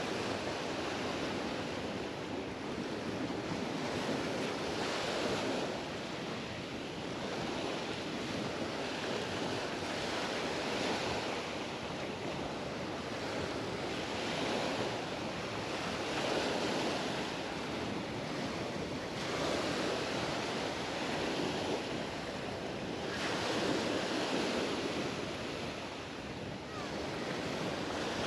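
Mediterranean surf: waves breaking and washing up the beach, the wash swelling and fading every few seconds.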